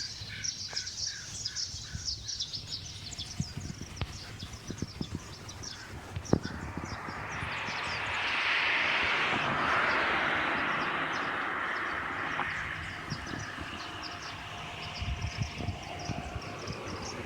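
Small birds chirping repeatedly outdoors, while a vehicle passes: a broad noise rises over several seconds, peaks in the middle and fades away. A few sharp knocks are scattered through.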